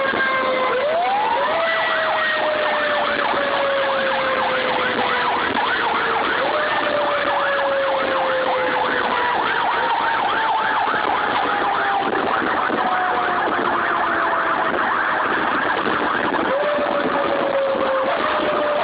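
Fire engine siren: a tone that winds slowly down in pitch and is spun back up three times, typical of a mechanical coaster siren, with a second, fast-warbling siren over it for much of the time and steady road noise underneath.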